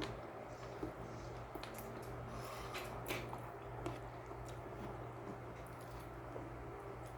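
Faint chewing and small mouth clicks of someone eating, over a steady low hum.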